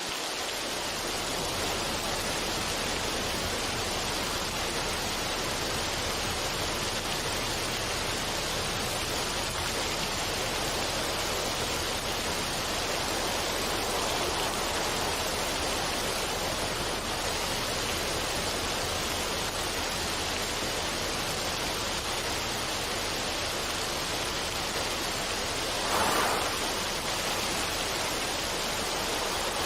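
Steady rushing water, an even, unbroken hiss, with a brief louder swell near the end.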